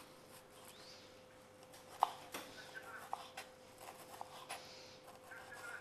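Kitchen knife slicing a red onion thinly on a wooden cutting board: faint, irregular taps of the blade on the board, starting about two seconds in.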